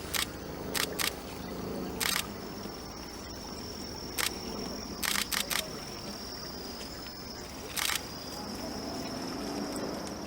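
Camera shutter clicks, about ten at irregular intervals, with a quick run of three or four about five seconds in. A steady high insect trill runs behind them.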